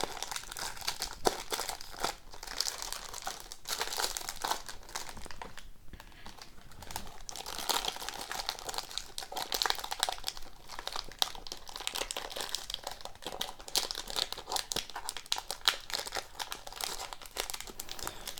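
Wrapper of a hockey card pack crinkling and rustling as it is handled and torn open, with many small irregular crackles and a short lull about six seconds in.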